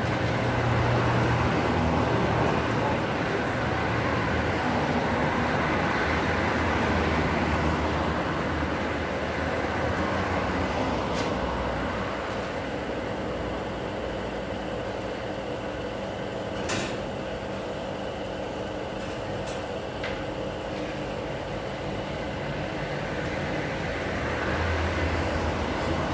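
Road traffic passing on a street, a steady rumble that swells at the start and again near the end as vehicles go by, with a few sharp clicks in between, the clearest about two-thirds of the way through.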